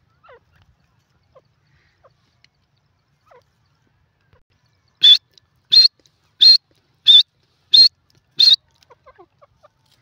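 Grey francolin calling: six loud, short, high-pitched notes evenly spaced about two-thirds of a second apart, starting about halfway through. Faint soft notes come before and after them.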